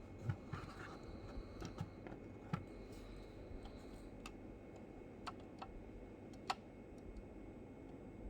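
Scattered light clicks and taps from handling a 1:18 diecast model car and its packaging, irregularly spaced over a faint steady room hiss. The sharpest click comes about two and a half seconds in, another about six and a half seconds in.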